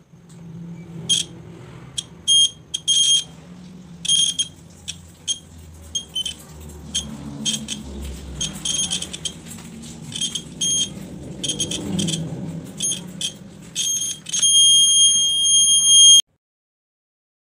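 Piezo buzzer of a homemade buzz-wire game beeping in short, irregular bursts of one high-pitched tone each time the handheld wire loop touches the bent wire and closes the circuit. Near the end it sounds continuously for about two seconds, then cuts off suddenly.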